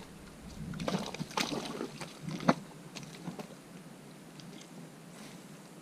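Clicks and rustles of fishing gear being handled, with one sharp click about two and a half seconds in, then only faint outdoor background.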